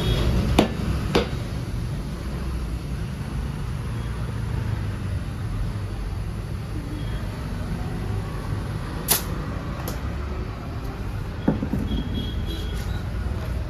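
Steady low rumble with a handful of short, sharp clicks and knocks: two in the first second or so, two about nine to ten seconds in, and one near eleven and a half seconds.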